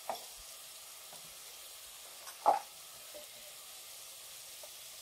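Tomatoes and spices frying in oil in an aluminium pressure cooker, a faint steady sizzle while being stirred. A utensil knocks twice against the pot, the louder knock about two and a half seconds in.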